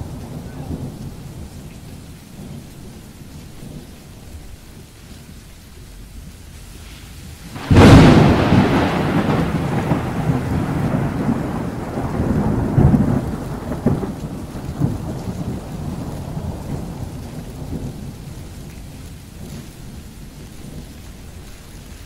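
A sudden loud thunderclap about eight seconds in, rumbling on and fading over the next several seconds, over steady heavy rain on a car's windshield heard from inside the car.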